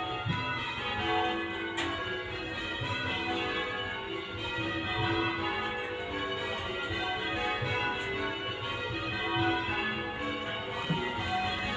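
Church bells change ringing, a Surprise Major method on eight bells, struck one after another in an unbroken sequence with the tones overlapping.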